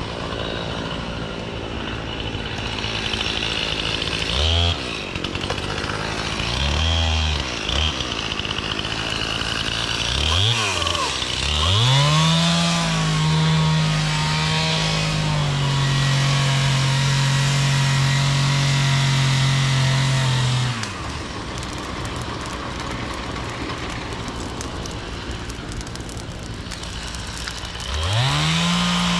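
Two-stroke chainsaw blipped several times, then held at full throttle, its pitch sagging a little as it loads up in the cut. It drops back to idle for a while and revs up again near the end.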